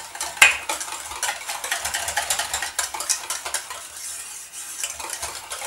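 Wire whisk beating a thin, mayonnaise-based salad dressing in a stainless steel bowl: a fast, continuous run of wire ticks and scrapes against the metal, with one sharper clink about half a second in.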